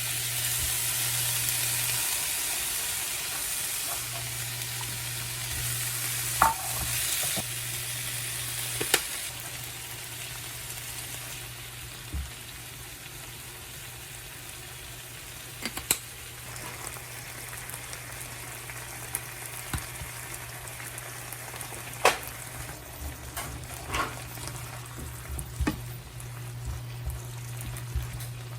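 Food frying and sizzling in a pan while it is stirred, the utensil knocking and scraping against the pan now and then. The sizzle is strongest for the first several seconds and then dies down. A steady low hum runs underneath.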